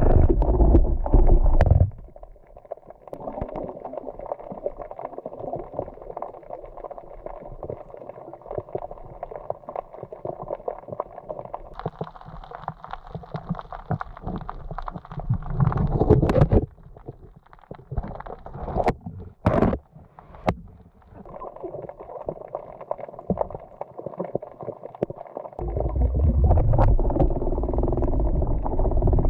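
Sea water gurgling and sloshing around a camera in the water, with loud low rumbling water movement for the first couple of seconds and again over the last few seconds.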